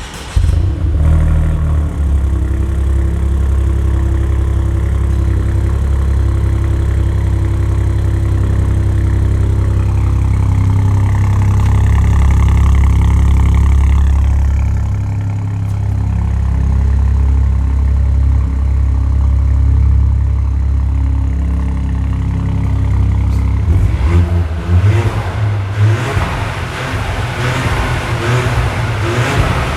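2022 Ford Puma's engine heard through an exhaust with its flaps held permanently open. It starts up suddenly at the outset and runs with a steady deep note, then turns rougher and uneven for the last several seconds as it is revved or pulls away.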